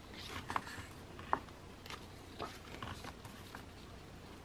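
Faint, scattered clicks and light rustles of paper and card being handled, as photocards and album inserts are picked up and looked through; one sharper click about a second and a half in.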